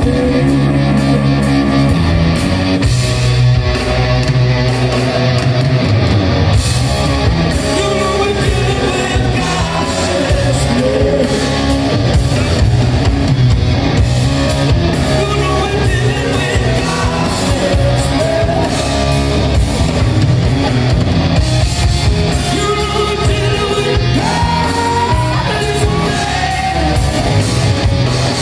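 Rock band playing live: electric guitars, bass and drums, with a male singer. Heard from the audience in a concert hall.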